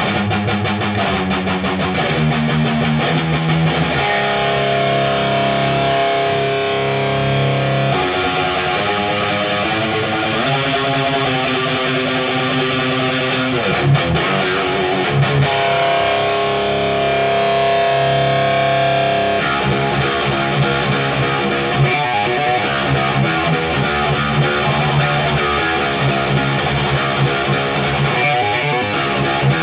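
High-gain distorted electric guitar, an Ibanez RGA42FM with a Seymour Duncan Omega bridge humbucker, played loud through a cranked Randall Diavlo RD20 tube amp. Fast chugging notes open, then long ringing chords, and quick riffing returns after the middle.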